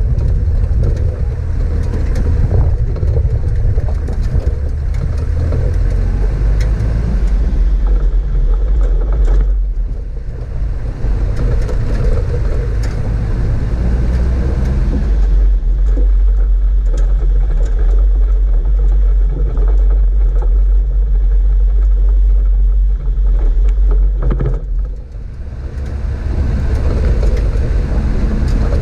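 Toyota four-wheel-drive vehicle driving over a rough lava-field track: a steady low rumble of engine, tyres and wind. It eases briefly about a third of the way in and again near the end.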